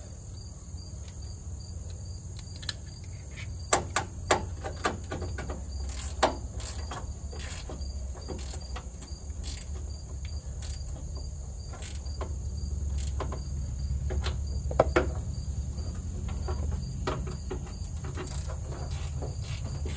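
Ratchet and socket clicking and clinking in short bursts as the bolts of a starter solenoid are tightened onto a truck's fender well, over a steady low hum and a steady high-pitched chirring.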